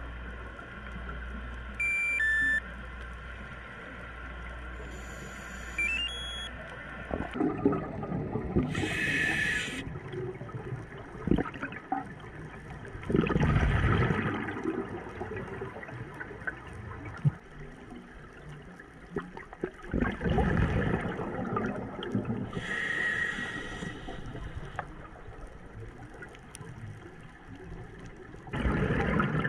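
Underwater audio of scuba breathing through a regulator: a hiss on an inhale and a burst of gurgling exhaled bubbles, recurring every several seconds. A brief electronic beep sounds about two seconds in.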